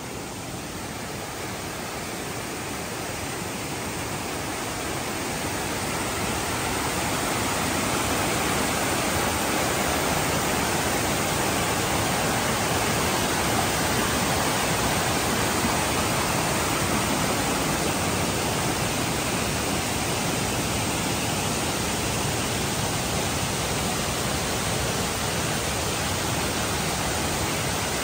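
Water rushing steadily over the low, tiered limestone cascades of Tad Sae waterfall, a constant rushing hiss. It grows louder over the first several seconds, then holds steady.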